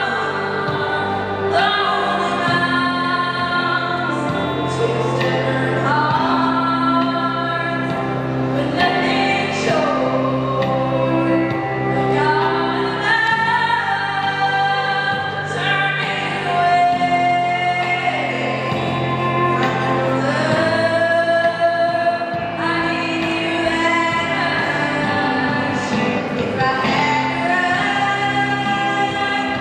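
A girl singing a song solo into a handheld microphone, holding long notes that bend in pitch, over a recorded instrumental backing track with steady bass notes.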